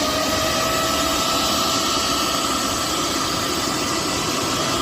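Bosch 1000 mixer grinder's motor running at speed with an abnormally loud, steady noise and a whine: the fault that the repairer traces to a loose coupling.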